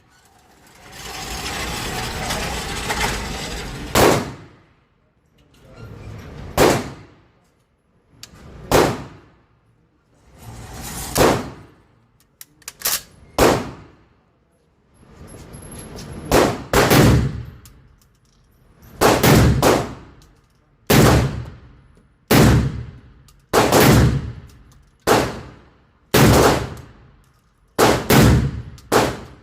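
Shotgun fired about twenty times at an uneven pace, some shots coming in quick pairs and triples, each with a short echoing tail. Before the first shot there are a few seconds of steady rushing noise.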